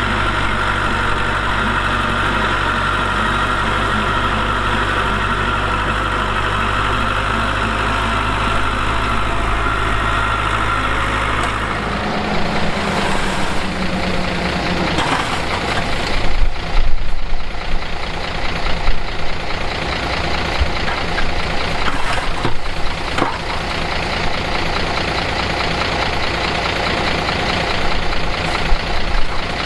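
Heavy diesel construction machinery running: a steady engine note for about the first twelve seconds, then the sound changes abruptly to an uneven engine whose loudness rises and falls, with several sharp knocks and clanks in the second half.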